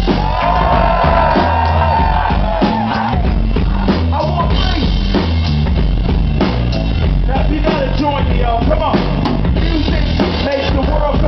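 Live hip-hop/funk band playing: electric bass guitar and drum kit laying down a steady groove, with an MC's voice on the microphone over it.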